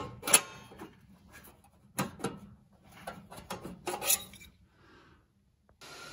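A small piece of sheet metal being worked into place on a car's floor: a run of sharp metal knocks, clinks and scraping rubs as it is pushed and wiggled into a tight corner. The handling stops, and near the end a steady hiss starts.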